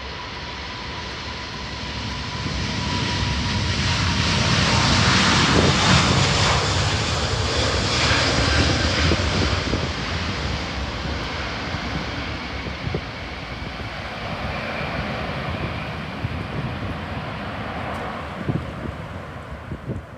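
Airliner's engines as the plane passes close by: a steady roar that swells to its loudest about five to six seconds in, then slowly fades. A thin steady whine sounds at the start and fades out as the roar builds.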